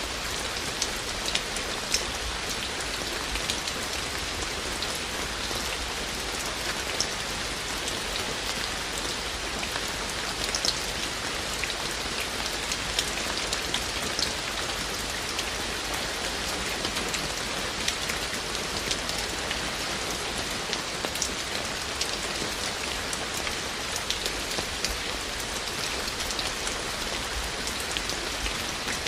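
Steady rain falling, an even hiss with frequent sharp ticks of individual drops striking close by.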